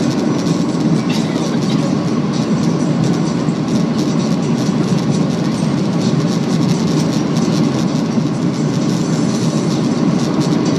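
Steady cabin noise inside a Boeing 737-800: a constant low roar from the CFM56 engines and the airflow, with faint light rattling.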